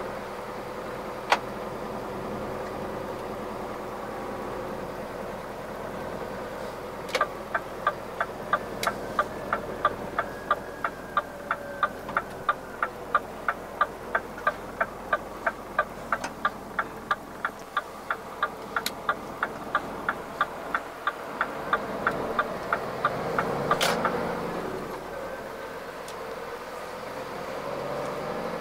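Inside the cab of a Scania R450 truck, its 13-litre inline-six diesel runs at low speed with a steady hum. From about seven seconds in, the turn-signal indicator ticks evenly at about two and a half ticks a second for some seventeen seconds, while the engine note swells near the end of the ticking. There is a single sharp click about a second in and a few others along the way.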